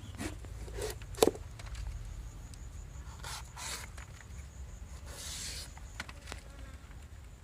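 A knife cutting a papaya: one sharp knock about a second in, a few light clicks, and two scraping swishes in the second half, over a steady low hum.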